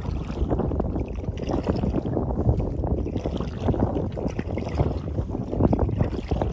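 Wind rumbling on the microphone over choppy water slapping and splashing against an Eddyline Skylark kayak's hull, with paddle strokes in the water as the boat is turned.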